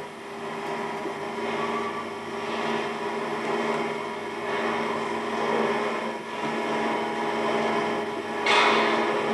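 Steady hum and noise of a railway station platform, played through a television speaker. A louder burst of hiss comes near the end.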